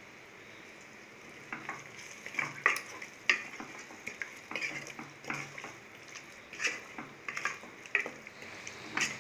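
A wooden spatula stirring and scraping a thick chicken masala in an aluminium pressure cooker, with irregular scrapes and knocks starting about a second and a half in, over a faint sizzle.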